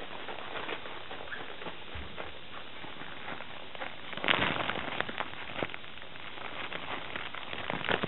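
Crinkling and rustling of a thin fabric pet play tunnel as puppies crawl through it, with many small crackles and a louder burst of rustling a little past four seconds in.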